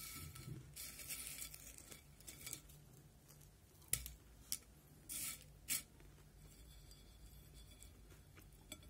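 Potato chips being eaten close to the microphone: a stretch of crackly crunching and rustling, then a few sharp single crunches about four to six seconds in and one more near the end.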